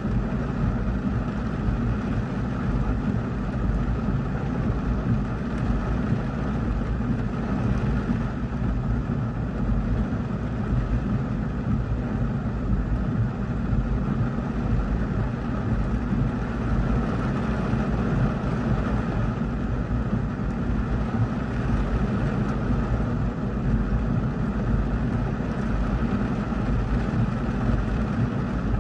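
Heavy rain beating on a car's roof and windshield, heard from inside the cabin: a steady, dense hiss and rumble that is strongest in the low end.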